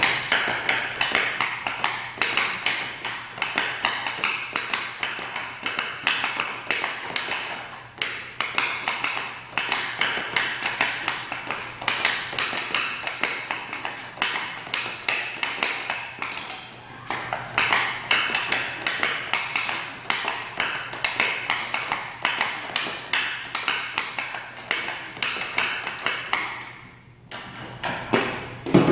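Rapid stickhandling: a hockey stick blade tapping a green training puck back and forth across a plastic stickhandling mat, an uneven run of clicks several a second. The tapping stops near the end, followed by a single louder thud.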